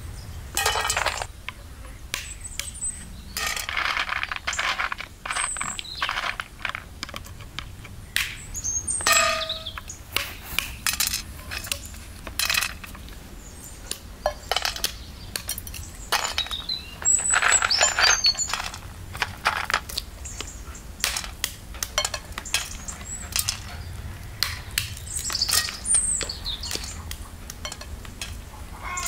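Walnuts being cracked open on a wooden stump: a long run of sharp cracks and clicks, with pieces of shell clinking against a metal bowl as the kernels are picked out.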